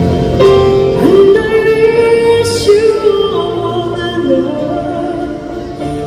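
Live band music: a woman sings long held notes of a slow ballad over keyboard accompaniment.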